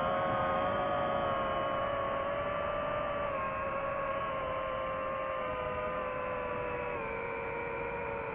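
DJI FPV drone's motors and propellers whining in flight, heard on the drone's own microphone: a steady whine of several stacked tones whose pitch drifts slightly with throttle and dips a little about seven seconds in.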